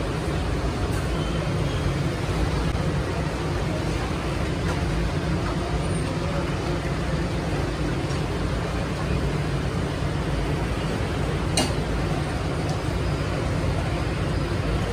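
Steady street traffic noise with a low hum, and one sharp click about eleven and a half seconds in.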